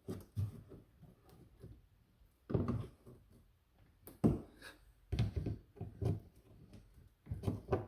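Irregular knocks, taps and rattles of a plastic cover plate and its push-in clips being worked loose by hand and pliers, with a sharper knock a little past the halfway point.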